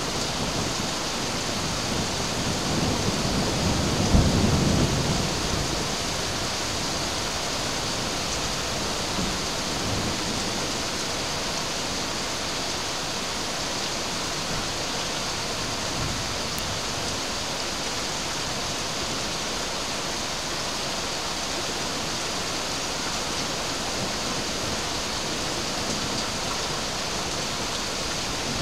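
Steady rain hissing down, with a low roll of thunder that swells about three seconds in and dies away by about six seconds.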